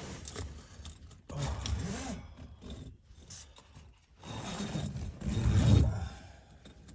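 Rooftop tent window zipper being unzipped in separate pulls, with the tent fabric rustling as the flap is drawn back; the longest and loudest pull comes about four to six seconds in.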